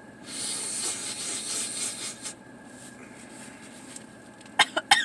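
A person trying to make themselves sneeze: about two seconds of rubbing hiss, then near the end several quick, sharp voiced catches of breath, hiccup-like.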